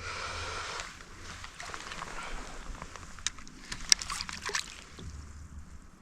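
Water splashing and sloshing beside a kayak as a hooked black bass is fought, with a few sharp clicks and knocks between about three and four and a half seconds in.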